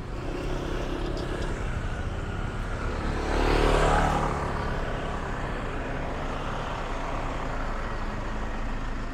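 Street traffic: a steady low hum of road vehicles, with one motor vehicle passing close and swelling louder for about a second around three to four seconds in.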